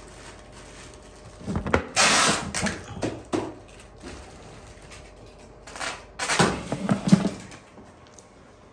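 Packing tape being pulled off a roll in rough rasping pulls, in two spells of about two seconds each, while gear is taped up for shipping.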